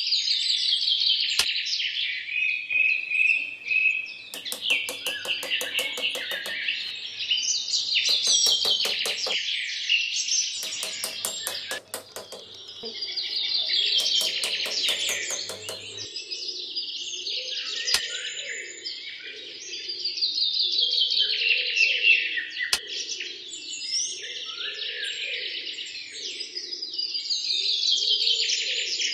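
Many small birds chirping and twittering without a break, with several spells of rapid, evenly spaced clicking trills. A lower, rhythmic chirping joins about halfway through.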